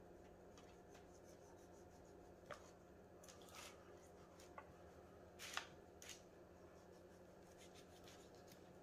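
Near silence, broken by a handful of faint scrapes and crinkles from a knife trimming hard fat off a slab of beef short ribs on a plastic sheet, the clearest about halfway through.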